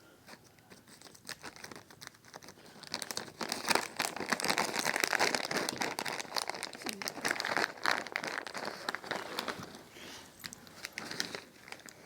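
Crinkling of a plastic cat-treat packet being handled, a dense crackle that builds about three seconds in, is loudest through the middle and tails off near the end.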